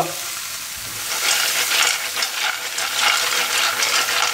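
Mussels in their shells sizzling and crackling in a hot pan, the shells clattering against the pan as it is tossed. The crackle grows denser and louder about a second in.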